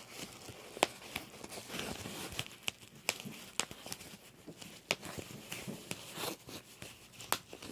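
Bubble wrap being popped by hand: irregular sharp pops, roughly one or two a second, over the crinkling of the plastic sheet as it is squeezed and handled.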